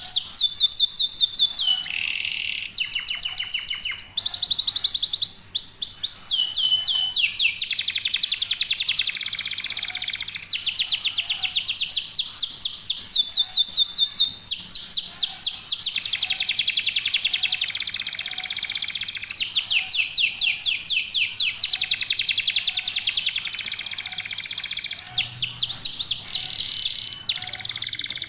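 Male domestic canary singing continuously in fast trills and rolls of rapidly repeated high notes, switching to a new phrase every second or two.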